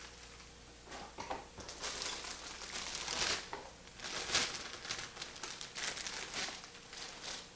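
Metallic anti-static bag crinkling and rustling in bursts as a motherboard is handled and slid out of it, loudest about three and four and a half seconds in.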